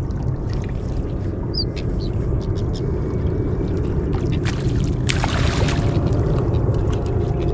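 Steady low wind rumble on the microphone and water around a small boat, with scattered light clicks and a brief splashing hiss about five seconds in.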